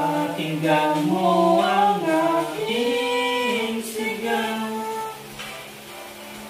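Singing with long held notes that slide between pitches, over a steady music backing; the voice drops out about five and a half seconds in, leaving the backing.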